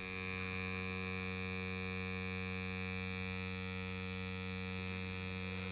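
A band holding one long sustained chord, steady and unchanging in level.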